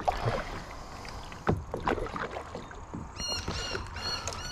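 Kayak paddling: the paddle blades dipping and splashing in the creek water, stroke after stroke. From about three seconds in, a repeated high chirping sounds over it, several chirps a second.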